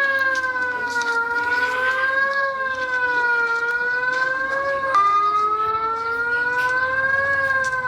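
Emergency alert system alarm tone, siren-like: a chord of several steady tones whose pitch slowly wavers up and down, about one rise and fall every two and a half seconds. About five seconds in the pitch drops suddenly and the slow wavering starts again.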